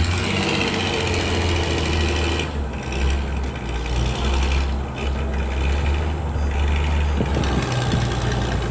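A truck engine running steadily, a continuous low hum with a higher whine over it.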